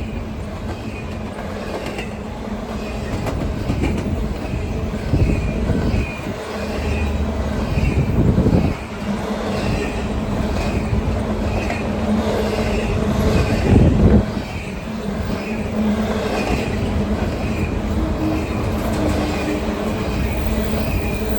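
BNSF freight train rolling past, its wheels clattering in a steady clickety-clack over the rail joints, with a few heavier clanks along the way.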